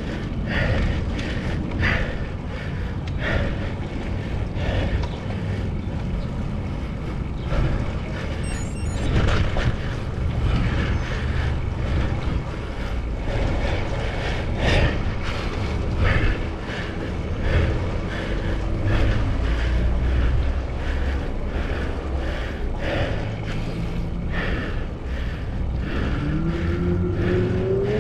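Wind rushing and buffeting over the microphone of a camera on a moving road bike, with road noise under it. About two seconds before the end a tone starts rising in pitch.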